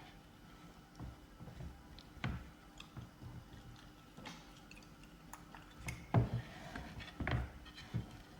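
Close-miked chewing of fried egg: soft wet mouth sounds with scattered small clicks, and a few louder smacks in the second half.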